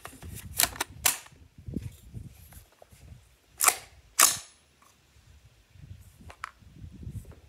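.50 Beowulf AR-15 rifle firing two shots about half a second apart, with a few lighter sharp knocks before and after.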